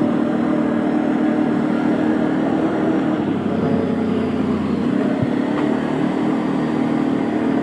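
ATV engine running steadily while the quad rides along a dirt trail, heard from on board.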